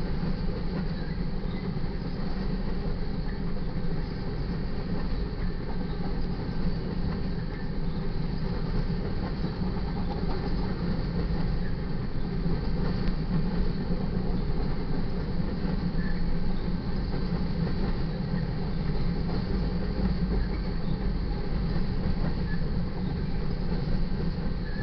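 Loaded covered hopper cars of a grain freight train rolling steadily past: a continuous low rumble of steel wheels on the rails.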